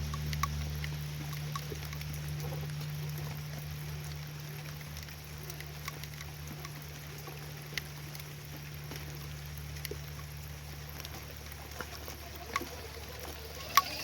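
Rain falling, with a handful of sharp taps of drops landing, over a steady low hum.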